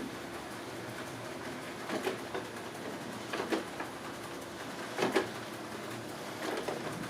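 Robot vacuum cleaner running with a steady hum, broken by four brief clattering bursts about a second and a half apart, the loudest about five seconds in.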